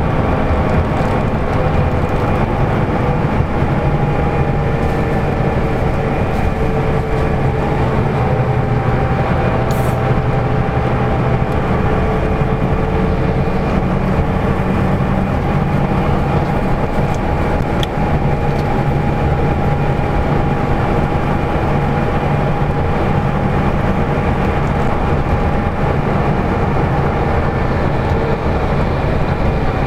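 LiAZ-5250 bus cruising on a highway, heard from inside the cabin: a steady engine and road drone with a whine that drifts slowly in pitch.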